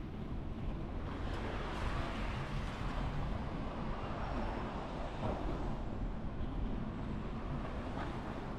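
Steady outdoor traffic rumble mixed with wind noise, swelling a little about a second in.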